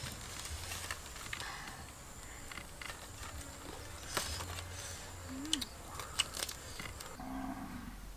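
Cleaver cutting through grilled pork ribs: scattered sharp knocks and crunches, loudest about four to six and a half seconds in. A few short animal calls are heard along with them.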